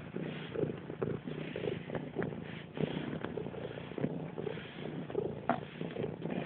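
Domestic cat purring steadily, heard close up while it kneads clothes, with a few soft rustles and clicks.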